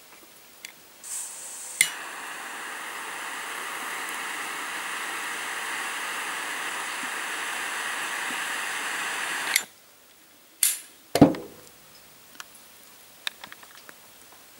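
Butane jet lighter clicked on and burning with a steady hiss for about eight seconds while lighting a cigar, cut off with a click. Two short knocks and a few small clicks follow.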